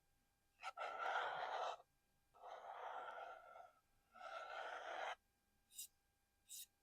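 Three drawn-out rubbing strokes across a small object, each lasting about a second, followed by two short, sharp taps near the end.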